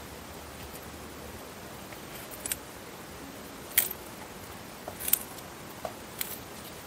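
Eastern Hermann's tortoise biting into leafy greens: about four crisp, snipping bites a second or so apart, starting about two and a half seconds in, over a steady hiss.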